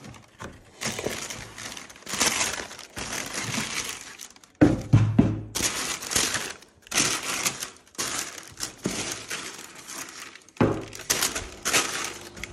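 Tissue paper crinkling and rustling in repeated bursts as it is handled inside a cardboard shoebox, with two heavier thuds from handling the box, one near the middle and one near the end.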